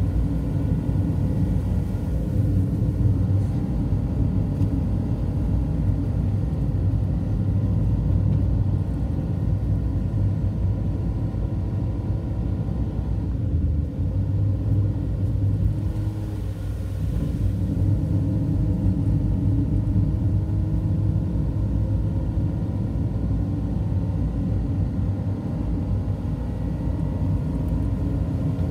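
Car engine and tyre-on-road rumble while driving up a winding mountain road, the engine note drifting up and down with the revs and dipping briefly a little past halfway.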